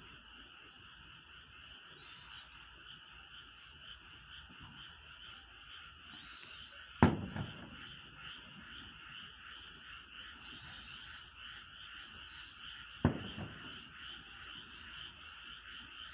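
A steady chorus of frogs croaking. Two sharp booms from distant firework shells bursting, about six seconds apart, each followed by a short echo.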